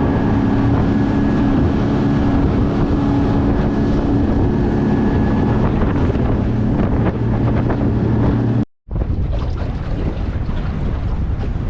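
Boat motor running steadily under way, with heavy wind buffeting the microphone. About nine seconds in the sound cuts, and the engine tone drops away, leaving mostly wind and water noise.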